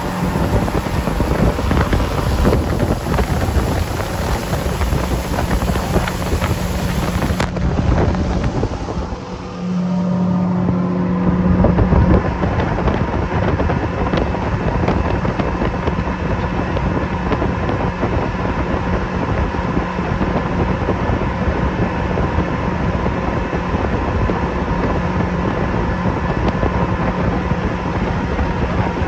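Outboard motors running steadily at cruising speed, with wind rushing over the microphone. The engine sound dips briefly about nine seconds in, then picks up again.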